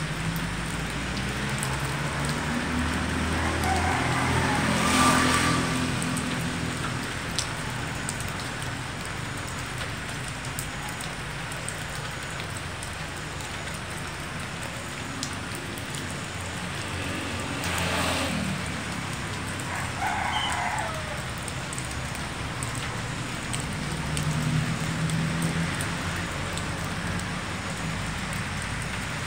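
Steady hiss of light drizzle falling, with the low hum of a motor vehicle swelling and fading as it passes, about five seconds in and again near the end of the second third.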